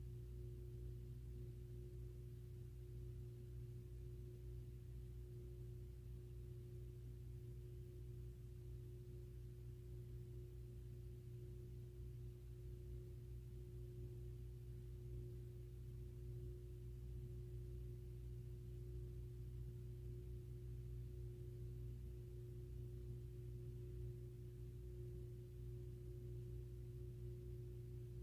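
Steady low hum with a constant faint tone in it: room tone with no other events.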